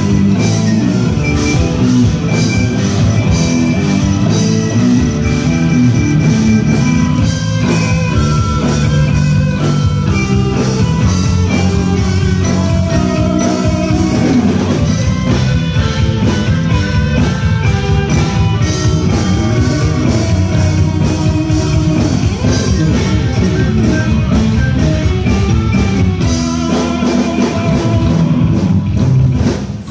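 Live rock band playing with distorted electric guitar, bass guitar and a drum kit.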